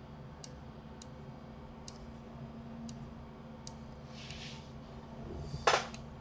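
Computer mouse clicking: sparse single clicks about once a second over a low steady hum. There is a brief soft hiss a little past the middle and a louder double clack near the end.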